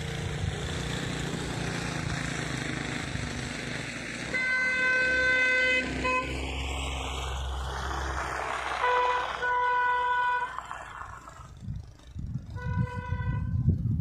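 A vehicle horn honking in several blasts, one long, some short, over the steady rumble of running vehicle engines. A rough low rumbling comes in near the end.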